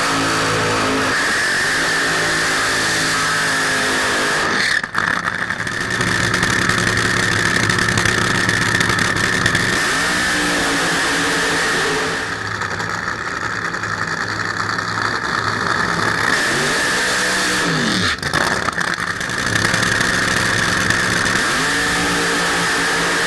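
Supercharged nitromethane V8 engines of nitro funny cars running loud, revved up and back down in pitch several times. The sound changes abruptly about five seconds in and again near eighteen seconds.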